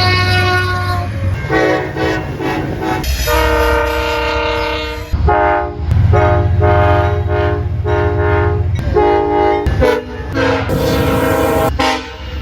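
Train horns sounding loud multi-note chords in a run of blasts, long and short, over a low locomotive rumble. The horn's chord changes abruptly a few times as one clip cuts to the next.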